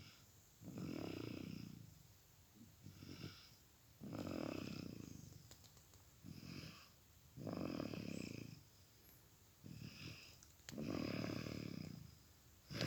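A small child snoring in sleep, deep like an adult. There are four long snores about three and a half seconds apart, with a shorter, softer breath between each.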